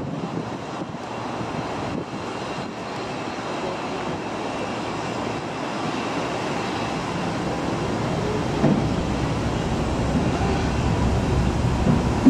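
Wind blowing on the camera microphone: a steady rushing rumble that grows stronger and deeper in the second half, with a couple of brief bumps.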